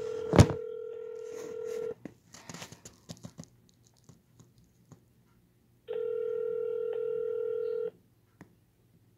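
Telephone ringback tone heard over a phone line, the steady two-second ring coming twice with about four seconds between. The call is ringing through and waiting to be answered. A loud sharp click comes about half a second in, with a few faint clicks after the first ring.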